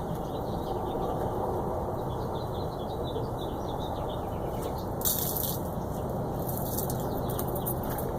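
2006 Honda Odyssey's 3.5-litre V6 idling steadily on its test run after a knock sensor replacement. A brief high hiss comes about five seconds in.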